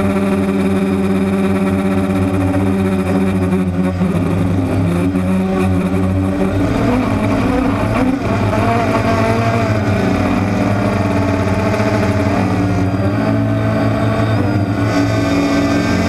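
DJI Phantom quadcopter's motors and propellers whining steadily, as heard from the drone's own onboard camera. Several tones shift together in pitch as it manoeuvres, with a wavering stretch in the middle.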